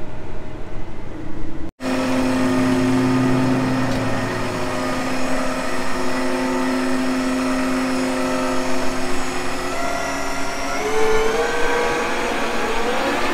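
Case IH 380 Magnum Rowtrac tractor's diesel engine. For about the first two seconds it is a steady hum heard from inside the cab while driving. After a cut it runs steadily as the tractor moves, and its pitch rises over the last few seconds as it picks up revs.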